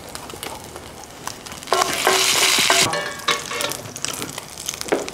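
Oil crackling and sizzling in a skillet where corn tortilla birria tacos are frying. About two seconds in it gets louder for about a second.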